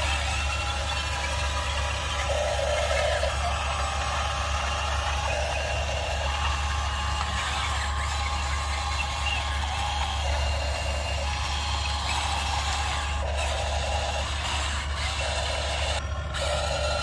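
Heavy-vehicle engine sound with a steady low hum. It is broken by bursts about a second long that come and go every few seconds.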